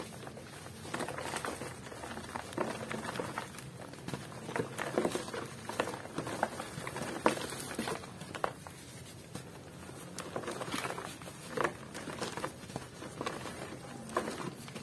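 Dry, set cement being broken and crumbled by hand: irregular crunches and snaps with grit and powder pattering down, the loudest sharp snap about halfway through.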